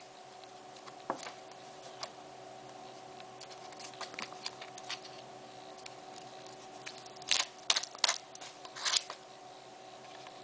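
Small clicks, taps and scrapes of a compact digital camera being handled while its battery is slid into the battery compartment, with a few louder clicks and scrapes in the last few seconds, over a faint steady hum.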